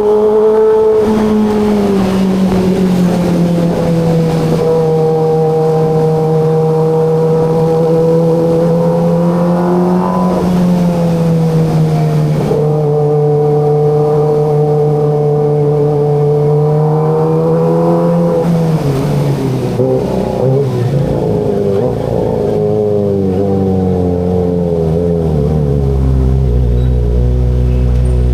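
Kawasaki ZX-25RR's 250 cc inline-four engine on the move, mostly holding steady revs. Its pitch climbs and then drops twice, as at a gear change or easing off, and it settles to a lower, rumbling note near the end.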